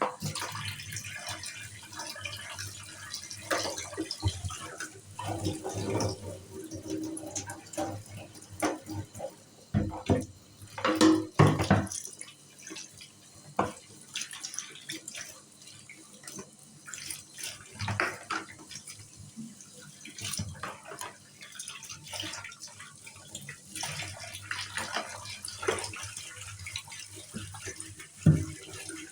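Water running from a kitchen tap into a sink, with irregular knocks and clatters of things being handled in it, loudest about ten to twelve seconds in.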